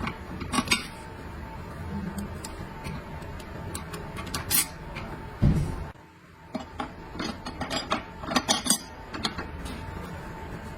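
Metal tools and parts clinking and clicking as they are handled, with a heavier knock about five and a half seconds in.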